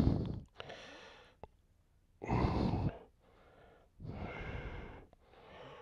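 A man breathing close to the microphone in about three slow cycles: each louder out-breath is followed by a quieter in-breath.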